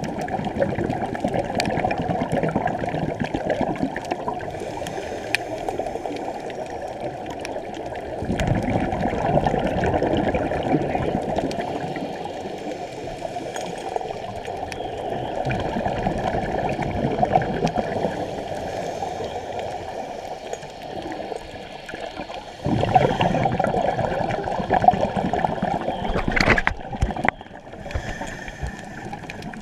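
Muffled underwater rushing and bubbling, heard through a submerged camera, with scuba bubbles from divers' exhalations. It grows louder for a few seconds about eight seconds in and again near the end, with a few sharp clicks.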